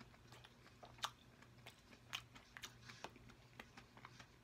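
Faint close-miked chewing and lip-smacking of a mouthful of sauced food: irregular soft wet clicks, a few a second, over a low steady hum.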